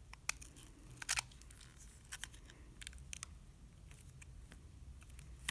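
Scattered light clicks and taps, about ten sharp ticks spread irregularly, the loudest about a second in and at the very end, as a partly disassembled smartphone and its parts are handled.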